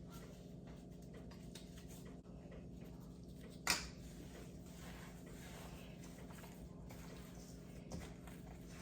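Faint squishing of raw ground-meat mixture being kneaded by gloved hands in a bowl, with a sharp click about four seconds in, over a steady low hum.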